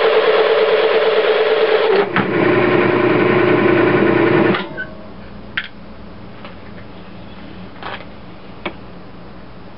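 Metal lathe running with a steady hum while a parting tool cuts off a turned bushing. The pitch drops about two seconds in, and the lathe stops suddenly just under five seconds in. A few light clicks follow.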